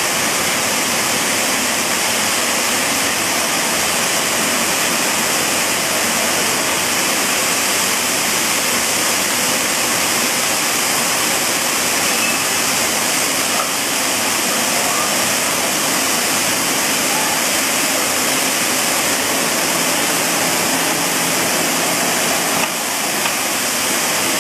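MCHJ30 rice milling plant's machinery running with a steady, even rushing noise.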